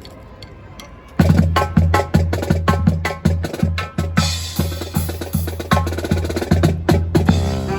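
Marching band's drums strike up about a second in, with bass drum and snare playing a driving beat. Brass comes in near the end: the start of the band's closing number.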